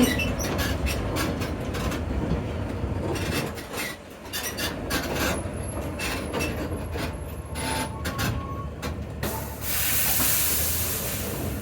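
Zoomobile tour tram rumbling and rattling with many clicks and knocks as it pulls up to a stop, with brief faint squeals, then a hiss lasting about two seconds near the end.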